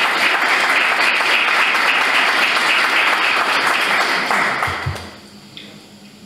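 A small audience applauding, dying away about five seconds in.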